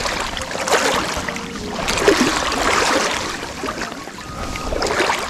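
Lake water sloshing and splashing irregularly in the shallows.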